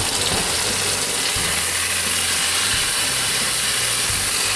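Butter and brown sugar sizzling in a hot pan, with a few knocks and clatters as red potatoes are added.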